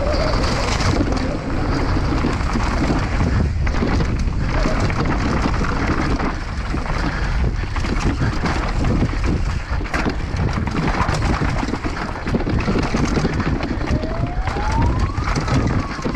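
Downhill mountain bike running down a rough course at speed, with constant wind buffeting on the microphone and tyres and frame rattling and knocking over bumps. Near the end a short thin tone rises and then falls.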